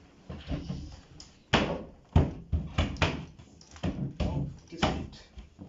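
Wooden wardrobe panels knocking and thudding as a board is handled and pushed onto wooden dowels: a string of about seven sharp knocks starting about a second and a half in.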